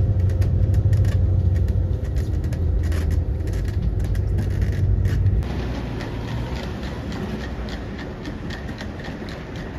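Coach cabin noise while riding: a steady low engine and road rumble with small rattles. About halfway through it gives way abruptly to quieter outdoor background noise.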